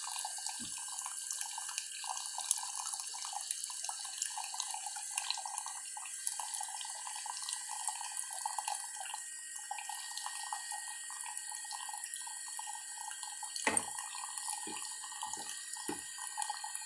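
Keurig Mini coffee maker brewing, with coffee pouring in a steady stream into a cup. A single knock comes near the end.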